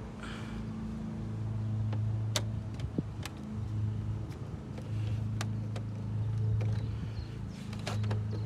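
A steady low engine-like hum that swells and eases, with scattered sharp clicks from a screwdriver and the plastic console trim being handled.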